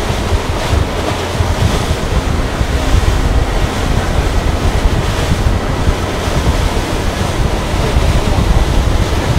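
Wind buffeting the microphone and water rushing along the hull of a 335 Everglades center-console boat running at speed, a loud, steady rushing heavy in the low end. The boat is speeding up to about 18 miles an hour.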